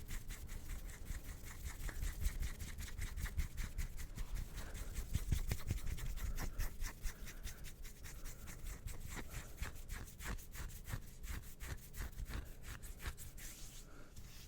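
Fast rubbing and scratching of bare hands close to the microphone: a dense run of quick, raspy strokes that eases off near the end.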